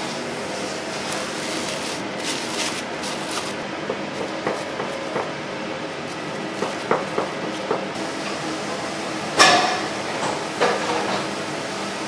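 Metal kitchen tools clanking and tapping on hard surfaces in a burger kitchen: a run of light knocks, then a louder ringing clank about nine seconds in and another about a second later, over the steady hum of kitchen ventilation.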